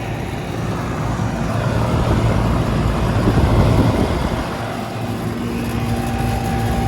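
Outdoor central air conditioner condenser units running: a steady fan rush over a low compressor hum. About five seconds in, a steadier humming tone comes up, as if nearing one unit.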